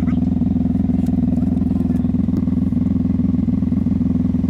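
Vehicle engine running at steady revs: an even, low drone that does not change in pitch.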